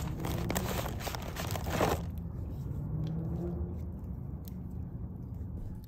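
Wood fire of split logs crackling in a pit, with many crackles and pops in the first two seconds and fewer after, over a low steady hum.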